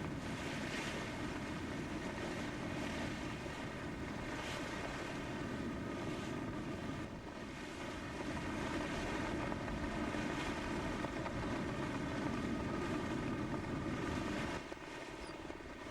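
A steady engine drone mixed with wind and rushing water at sea, dipping briefly about seven seconds in and dropping off near the end.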